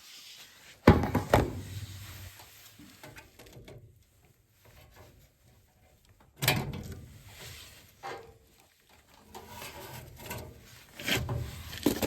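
Knocks and clunks of a furnace control board and parts being handled in the furnace cabinet, with a sharp double knock about a second in, another about six and a half seconds in, and more near the end, quieter rustling between.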